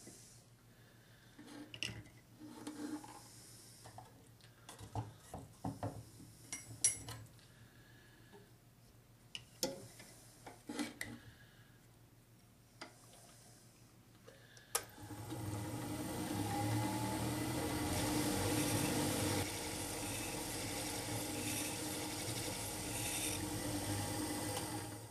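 Scattered clicks and knocks, then about fifteen seconds in the Ez-Vex shear sharpening machine starts suddenly and runs steadily for about ten seconds before stopping.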